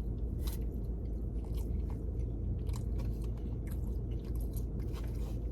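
Close-up chewing: a man chewing a mouthful of food, with scattered short wet mouth clicks, over a steady low hum.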